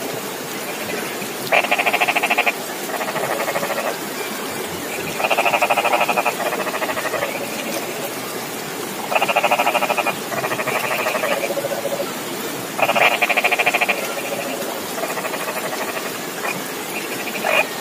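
Frogs calling from a flooded rice paddy: rattling, pulsed calls about a second long, usually two in a row, repeating every three to four seconds over a steady background hiss.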